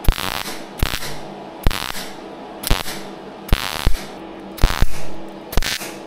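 Welding in short bursts about once a second, each opening with a sharp crack followed by a brief hiss, over a faint steady hum: sealing the crushed end of a hydraulic pipe fitting to make a blank cap.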